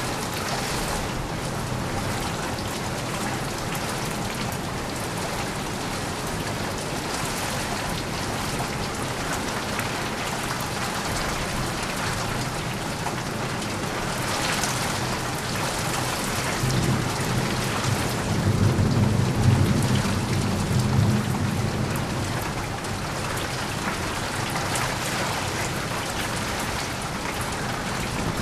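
Steady heavy rain falling, with a low rumble of thunder that swells and fades about two-thirds of the way through.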